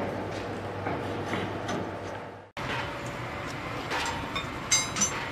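Quiet background with faint taps, cut off abruptly about halfway through. Then building-site background with a few short metallic clinks near the end, as steel reinforcing bars are handled.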